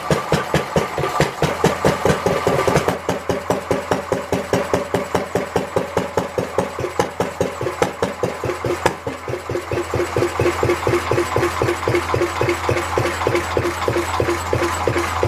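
Lister D 1.5 hp single-cylinder four-stroke stationary engine running after its repair, a steady, even train of firing beats; about nine seconds in the beat briefly drops in loudness, then picks up and runs on evenly.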